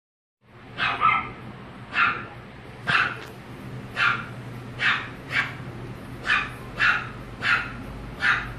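French Bulldog puppy barking in short, high yaps, about ten of them at roughly one a second.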